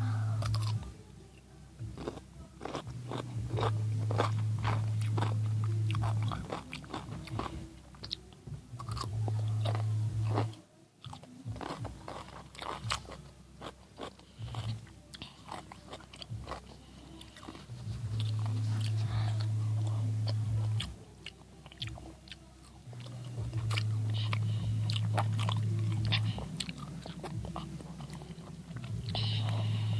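A pickle being bitten and chewed close to the microphone: a long run of sharp, crunchy bites and chewing. A low hum comes and goes in stretches of a few seconds.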